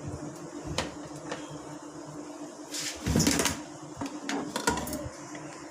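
Back cover of a TCL 40-inch LED TV being opened: scattered clicks and knocks of plastic and screws being handled, with a longer scraping rustle about three seconds in, over a steady low hum.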